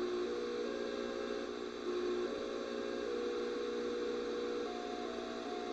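AM radio picking up a computer monitor's electromagnetic emissions driven by Tempest for Eliza, playing a slow tune of single tones that step from note to note, a little higher near the end, over a steady hum and static.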